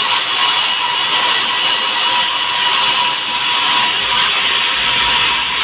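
Sawmill log band saw running steadily: a loud, constant hiss with a steady whine.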